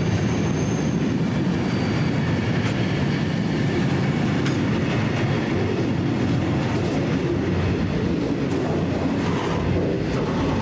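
Freight train rolling past on the rails, a steady heavy rumble of wagon wheels on track. A thin, high wheel squeal comes in briefly near the start, and a few faint clicks of wheels over rail joints follow.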